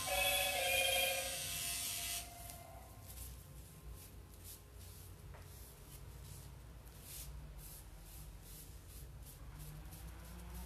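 Low steady buzz of a pen-style rotary tattoo machine, with soft repeated rubbing as gloved hands wipe the skin. Music plays at first and cuts off about two seconds in.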